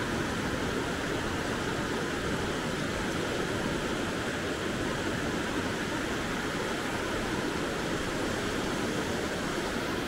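Small Caspian Sea waves breaking and washing up a sandy shore: a steady rush of surf.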